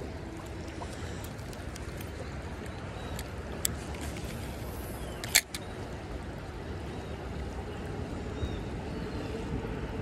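Shallow creek water running steadily over a stony riffle, with a sharp click about three and a half seconds in and a louder one about five and a half seconds in.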